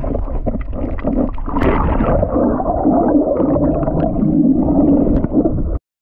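Muffled underwater sound from a submerged camera: churning water and bubbling with scattered sharp clicks, cutting off abruptly just before the end.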